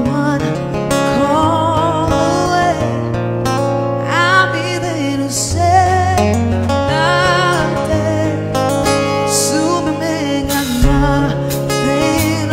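Live band performing a song: a woman's lead vocal over strummed guitar and drums, with cymbal crashes now and then.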